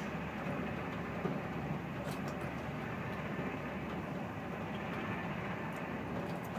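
Steady running noise heard inside a TGV high-speed train's passenger car at speed: an even rumble and rush, with a few faint ticks about two seconds in and near the end.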